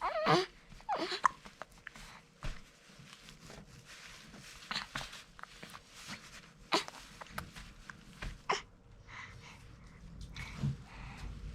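Hiccups: several short, sudden catches spaced a second or two apart.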